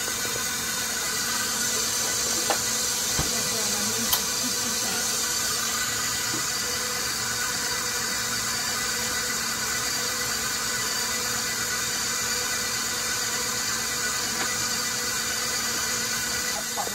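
Electric stand mixer motor running steadily on a low speed while kneading bread dough, a constant hum with a high whir. Two light clicks sound in the first few seconds.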